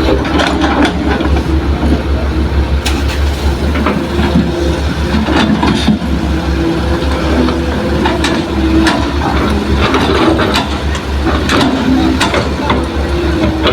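Hitachi excavator's diesel engine running steadily under load, with scattered clanks and knocks from the machine at work.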